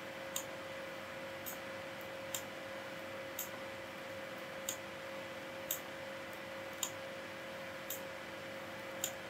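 Faint computer mouse clicks, about one a second, as keyframes are clicked and dragged. A steady faint electrical hum and hiss runs underneath.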